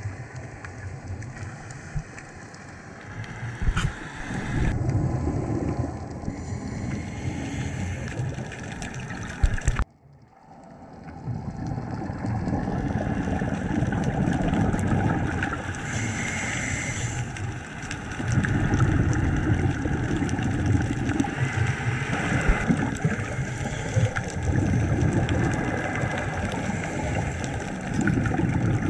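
Scuba diver's regulator exhaust bubbling underwater, swelling with each out-breath every few seconds, with a sudden brief drop-out about ten seconds in.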